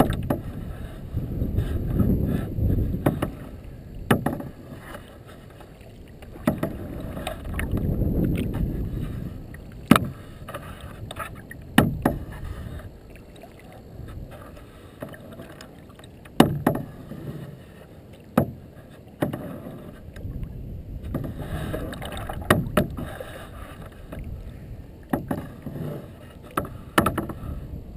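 Kayak paddling: the blades dipping and splashing in the water, with about eight sharp knocks or splashes spread through the strokes and a couple of low rumbling spells early on.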